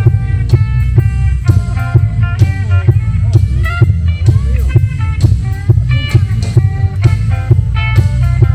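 Live band playing through a PA: guitar over bass and drum kit, with a steady beat. About midway the guitar bends several notes.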